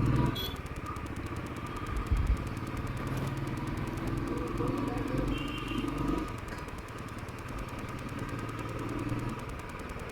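Royal Enfield motorcycle engine running steadily on the move, with a couple of low thumps about two seconds in.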